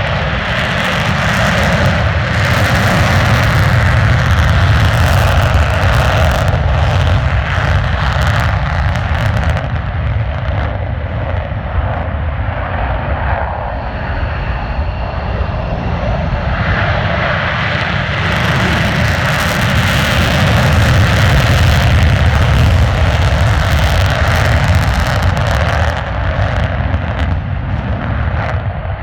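F-35 fighter jets, each with a single F135 afterburning turbofan, passing in two loud waves of ragged, crackling jet noise: one through the first ten seconds, a second from about seventeen to twenty-six seconds in, with a quieter stretch of engine noise between.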